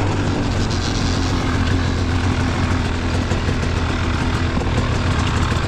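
Dirt bike engine running steadily at low revs.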